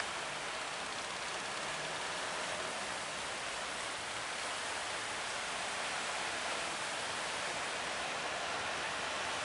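Steady rushing of wind and sea water around a boat riding through big waves.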